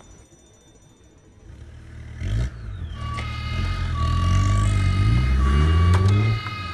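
A motor-vehicle engine sound comes in about two seconds in and runs loudly, rising and falling in pitch as if revving. Over it, a steady electronic beeping tone switches on and off.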